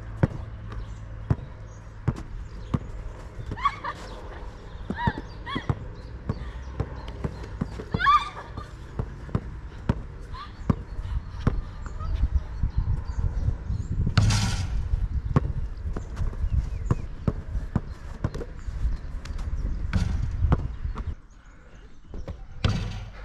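A basketball being dribbled and bouncing repeatedly, a sharp knock with each bounce, with a few short vocal cries. A brief loud rushing burst comes about halfway through.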